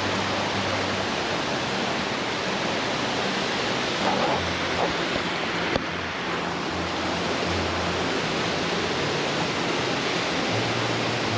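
Steady rush of stream water flowing through rapids, an even hiss of noise with no breaks. A single short click sounds about six seconds in.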